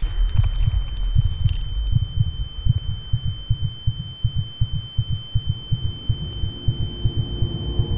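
Heartbeat sound effect: low, rapid thumps, about three to four a second, under a steady high-pitched ringing tone.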